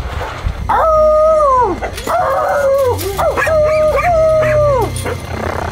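Dog howling: about four long howls in a row, each held at a steady pitch and then dropping away at the end.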